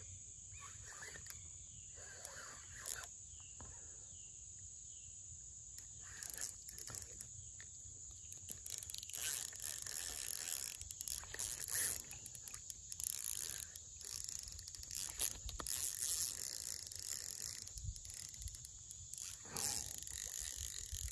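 Steady high insect buzz with a few faint chirps, then from about six seconds in, irregular rustling, scraping and water noises while a hooked catfish is played on a fishing rod.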